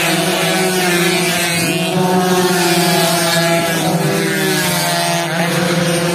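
Several two-stroke underbone racing motorcycles revving hard and accelerating as a pack. Their overlapping engine notes climb and drop again and again with the gear changes.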